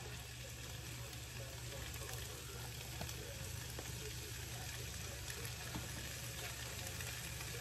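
Seasoned fajita steak sizzling in a frying pan on high heat: a steady hiss with faint scattered crackles over a low steady hum.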